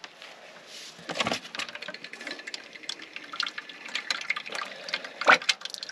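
Liquid splashing and dripping, with irregular scraping and clicks, as oily, rusty parts are washed and cleaned.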